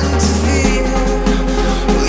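Electronic dance music backing track with a steady beat and heavy bass; the bass drops to a lower note under a second in.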